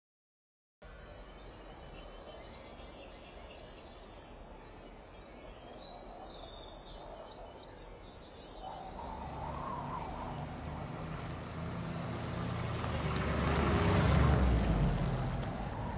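Outdoor countryside ambience with faint birds chirping. From about nine seconds in, a car's engine and tyres grow louder, pass closest near the end, and begin to fade.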